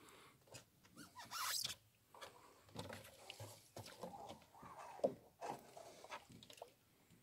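A small boat being rowed with a wooden oar: the oar splashes in the water, and the oar knocks and squeaks in its oarlock. There is a short splash about a second in.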